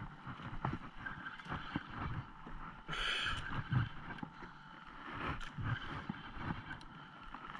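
Water and wind sounds around a small boat at sea, with scattered clicks and knocks from a Penn spinning reel and rod being handled, and one short louder splash-like rush about three seconds in.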